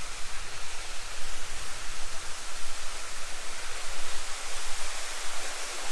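Wind blowing across the microphone: a steady rushing hiss with a gusty low rumble, its loudness rising and falling unevenly.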